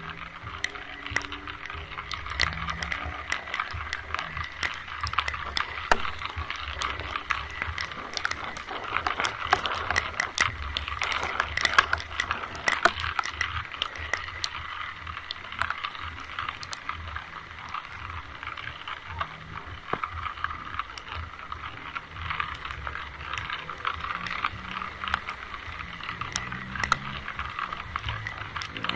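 Steady rain with many sharp drop ticks close by, over a low rumble.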